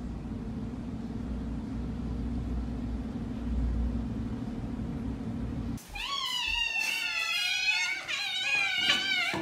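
A cat's steady, low purring for about the first six seconds; then two kittens meowing repeatedly in high, overlapping calls, begging to be fed.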